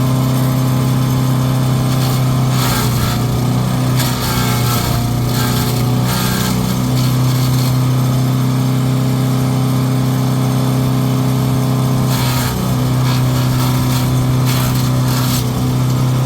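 Gas engine of a Country Pro chipper-shredder running steadily at full throttle, with irregular crackling and rattling bursts as material is fed through and shredded.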